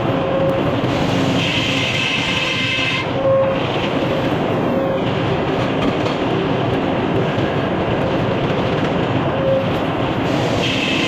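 Sawmill running as its blade cuts through a poplar log: a loud, steady mechanical noise with a higher-pitched ring that comes and goes.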